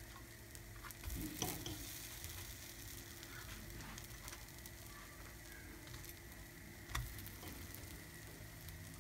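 Small wholewheat pancakes sizzling faintly in a greased multi-cup nonstick pan as they are turned over with a fork. There are two short knocks of the fork against the pan, about a second and a half in and again about seven seconds in.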